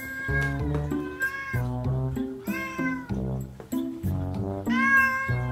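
A cat meowing in drawn-out, talkative wails, about four calls, the loudest and longest near the end, over background music.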